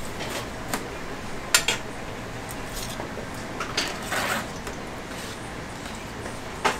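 Steel tongs and a metal skimmer clinking against a stainless-steel fryer: a few separate sharp clanks, with a short metal scrape about four seconds in.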